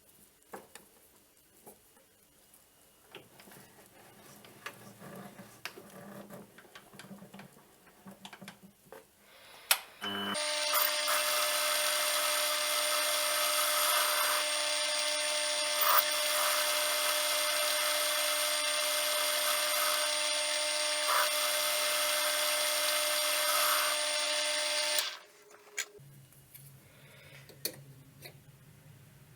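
Light clicks of metal parts being handled, then an electric power tool starts about ten seconds in and runs at a steady pitch with a whine and a hissing cutting noise for about fifteen seconds before stopping abruptly.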